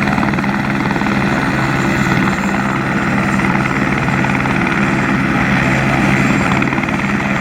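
Sheriff's helicopter in flight, its main rotor beating rapidly and evenly over a steady engine hum.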